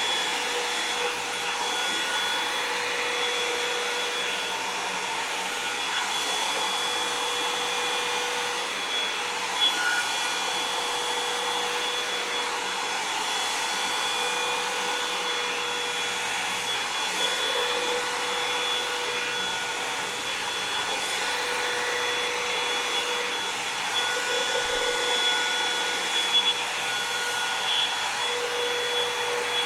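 Revlon One-Step hair dryer and volumizer brush running steadily while being worked through hair: a constant rush of blown air with a motor whine that wavers slightly now and then, and a couple of light knocks.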